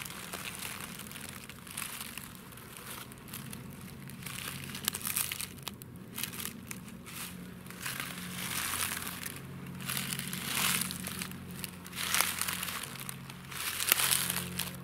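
Slow footsteps in rubber boots crunching through dry fallen leaves, about one step every second or two. They grow louder near the end.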